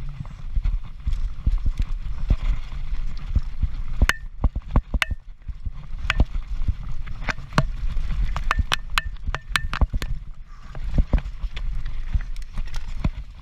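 Transition Patrol mountain bike clattering over rough ground at speed: a run of sharp, irregular knocks and rattles, some with a short metallic ring, over a constant low rumble of tyres and wind. The knocks come thickest from about four seconds in.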